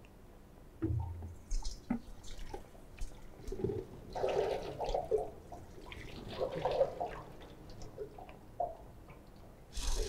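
Water and soaked soil poured from a steel bowl onto a stacked steel sieve (4.75 mm over 0.075 mm), splashing and running through the mesh for the wet-sieving wash of a sieve analysis. A few light knocks come before the pour.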